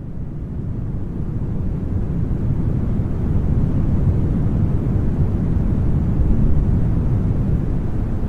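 Synthetic brown noise: a deep, even rushing weighted toward the low end, with no tones or rhythm. It swells in the first few seconds, then holds steady.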